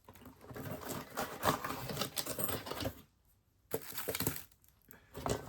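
Packaging rustling and small hard parts clicking and clinking as a lock and its keys are taken out of a cardboard box, broken by a short dead silence about three seconds in.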